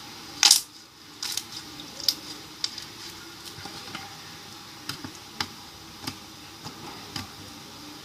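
Basic slime being squeezed and stretched by hand, giving irregular sticky clicks and pops, with a louder squelch about half a second in.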